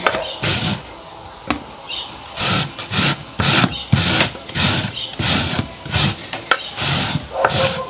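Cassava root being scraped by hand: repeated rasping strokes, about two a second.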